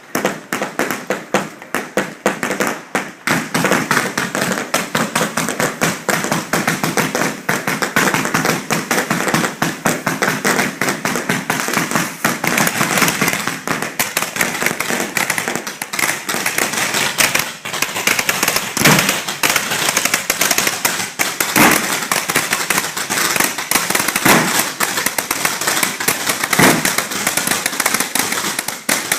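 Fireworks going off at close range: a continuous dense crackling of many small pops, with several louder single bangs in the second half.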